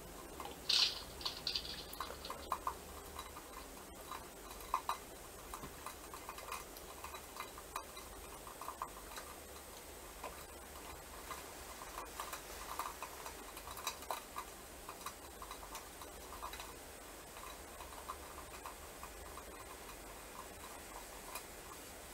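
Sparse, quiet improvised clicks and taps from a free-improvisation ensemble, scattered irregularly and mostly at one mid pitch, over a steady faint hiss. A brighter, higher squeak or scrape comes about a second in.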